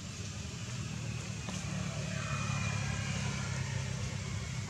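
Steady low engine rumble of a motor vehicle running nearby, slowly growing a little louder.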